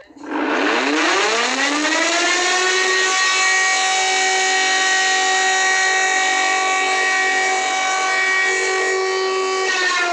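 Civil defense siren sounding an emergency alarm: it winds up in pitch over about a second and a half, holds a steady loud wail, and starts to wind down near the end.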